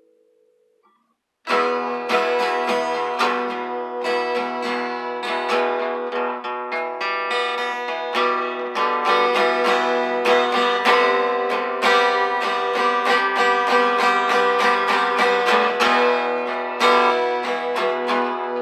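An acoustic guitar starts strumming chords suddenly after about a second and a half of near silence. The strumming then runs on steadily in a regular rhythm.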